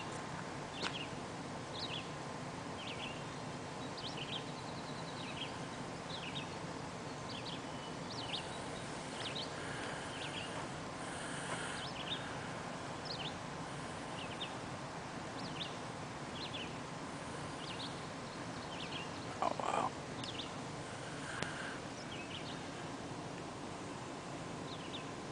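Small birds chirping in the background: short high chirps, roughly one a second, over a steady outdoor hiss. A brief louder sound stands out about twenty seconds in.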